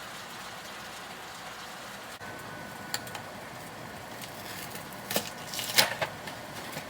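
Ground beef sizzling in a frying pan with a steady hiss. A cooking utensil clacks against the pan a few times near the end as the meat is broken up.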